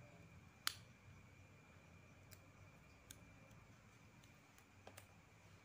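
Near silence with a few faint, short clicks and taps from a replacement phone LCD panel being handled, the sharpest one near the start.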